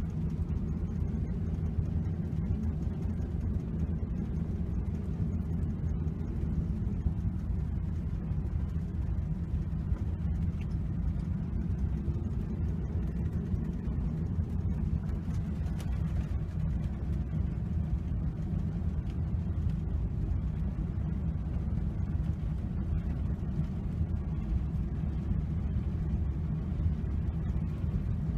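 A vehicle driving along a road: a steady low rumble of engine and tyre noise that does not change.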